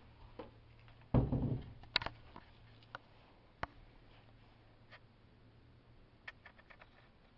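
A wooden bathroom vanity cabinet door bumps shut with a dull thump about a second in. Several light clicks and taps follow, a few in quick succession near the end.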